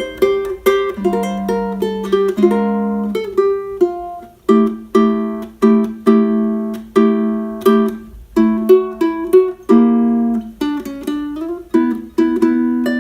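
Snail SR-05T tenor ukulele with a D'Addario low G string, fingerpicked: a steady run of single plucked notes, each ringing out. The low G sounds beneath the higher strings without covering them.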